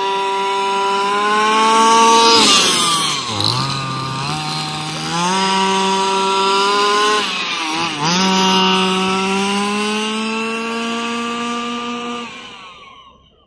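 Small two-stroke engine of a gas RC monster truck running at high revs. Its pitch climbs and holds, drops sharply twice as the throttle comes off, then dies away near the end.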